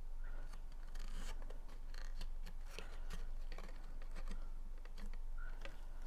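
Cardstock being handled and pressed together by hand as glued tabs are closed up: scattered small taps, crinkles and rubbing scrapes over a low steady hum.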